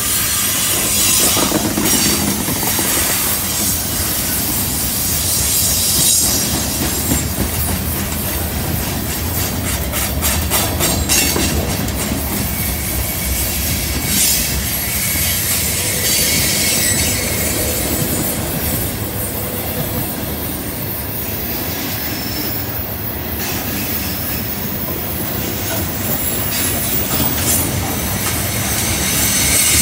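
Freight train cars rolling through a curve: steel wheels grinding and squealing against the rails, with clicks as wheels cross rail joints, most clustered about ten seconds in.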